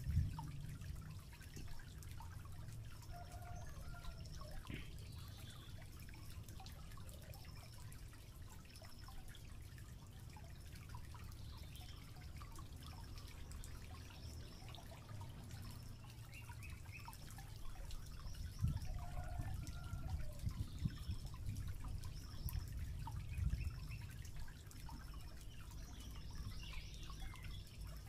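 Faint forest ambience: a steady low rumble with a few louder bumps, scattered short bird chirps, and a short high call repeating at intervals.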